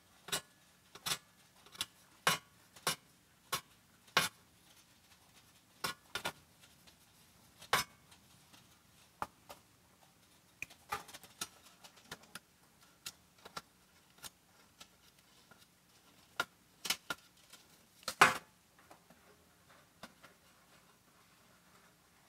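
Irregular sharp metallic clicks and clinks as crimped ring terminals and screw-on terminal hardware are fitted onto the element terminal posts of a Skutt kiln's stainless steel jacket. The clicks come close together for the first several seconds, thin out after, and the loudest comes about eighteen seconds in.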